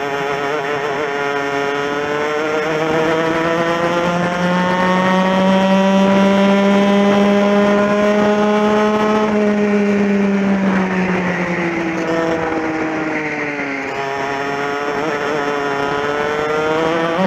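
Onboard sound of a TKM two-stroke kart engine at racing speed. The revs climb steadily for about eight seconds, drop away from about ten seconds in as the kart slows for a corner, then climb again near the end.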